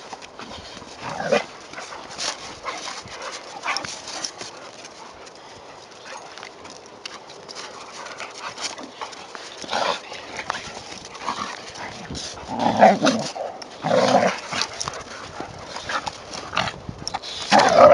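A Labrador puppy and a Doberman play-fighting in snow: paws scuffling and crunching in the snow. Short dog vocal sounds come twice about two-thirds of the way through, and louder ones start right at the end.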